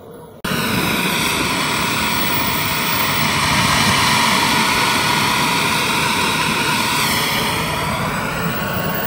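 Model jet turbine on an RC T-1 jet running on the ground: a steady rushing roar with a high turbine whine, cutting in suddenly about half a second in.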